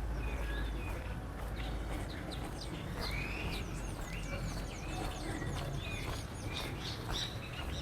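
Birds chirping and calling in quick, short gliding notes, busiest in the middle stretch, over a steady low background rumble.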